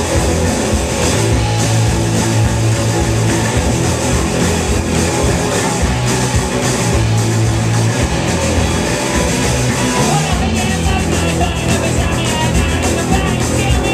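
Live punk rock band playing loud: distorted electric guitars, bass guitar and drum kit.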